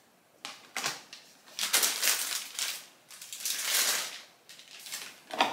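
A soft plastic baby-wipes pack crinkling and rustling as it is handled and pushed into a black plastic wipes dispenser box, in several bursts, then a sharp click near the end as the plastic lid goes on.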